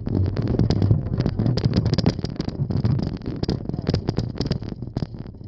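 Bicycle being ridden, heard from a phone riding on its wire handlebar basket: a steady low rumble with many sharp rattles and clicks throughout.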